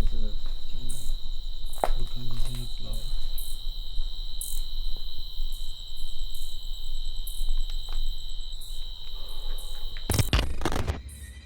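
Crickets trilling steadily, two high-pitched trills overlapping, over a low rumble, with faint voices in the first few seconds. About ten seconds in, a brief clatter of sharp knocks cuts the trilling off.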